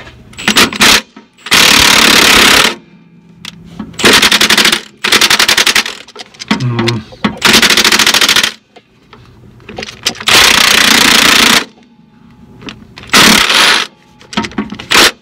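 Large impact wrench hammering in a series of short bursts, about a second each, loosening nuts on a bus's front airbag (air spring) mount.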